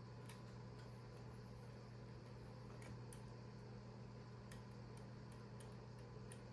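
Near silence: a steady low hum with a few faint scattered clicks.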